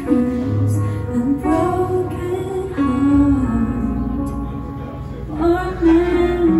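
A woman singing a slow ballad into a microphone, accompanied by guitar and keyboard.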